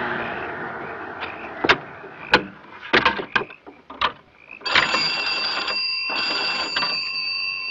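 A passing car fades away, then several sharp clicks as an old wall-mounted telephone on a post is handled. From a little past halfway, a telephone bell rings steadily with a few short breaks.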